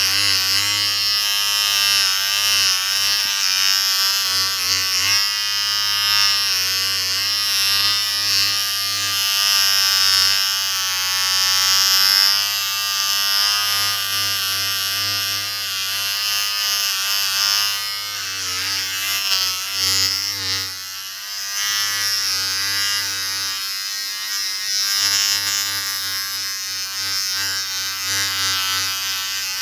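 Electric shaver running with a steady buzz whose pitch wavers slightly, dipping briefly about two-thirds of the way through.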